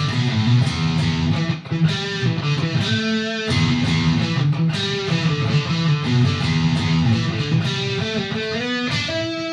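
Harley Benton Fusion II electric guitar with both pickups coil-split to single-coil mode, played through a Mesa/Boogie JP-2C on its dirty yellow channel into a 4x12 cabinet of Vintage 30 speakers. It plays distorted chords and riffs with brief breaks between phrases.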